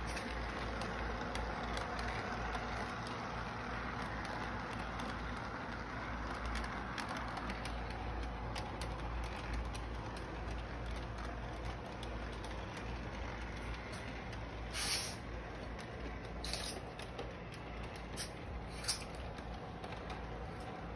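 Toy electric train running on three-rail track: a steady hum and rumble from the locomotive's motor and wheels, with a few short, sharp clicks in the last third.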